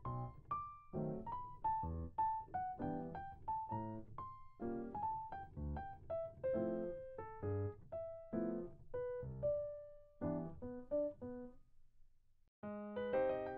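Background piano music: a light melody of single notes over soft chords. It breaks off briefly near the end, and a fuller passage with more chords begins.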